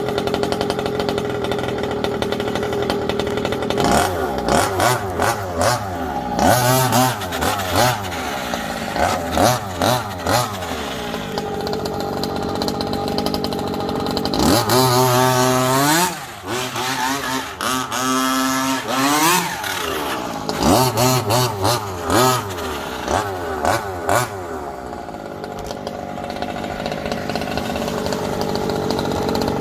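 Small two-stroke petrol engine of a 1/5-scale MCD RC rally car idling, then revved in a string of short throttle blips and one longer high run, its pitch dropping away after each, before settling back to a steady idle near the end.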